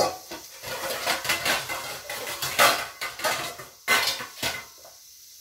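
A spoon scraping and clinking against a pan and a plate in quick, irregular strokes as cooked meat filling is spooned out; the clatter stops near the end.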